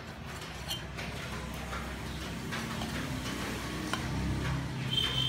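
Kitchen knife slicing raw beef on a wooden cutting board: soft, irregular knocks of the blade against the board, over a low steady hum.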